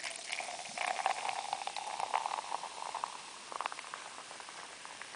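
Mountain Dew poured over ice and fizzing: a dense crackle of bursting bubbles, with a slowly rising tone as the container fills over the first few seconds, then the fizz dies down.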